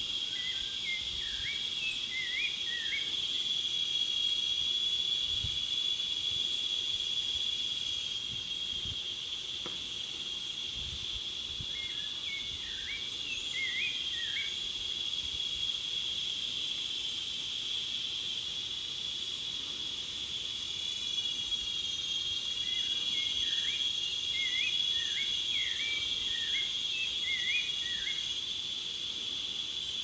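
Rufous-bellied thrush singing: three bouts of short phrases made of quick, downward-sliding notes, the first right at the start, one about twelve seconds in and a longer one from about twenty-two seconds. Under the song runs a steady high-pitched insect drone, the loudest sound throughout.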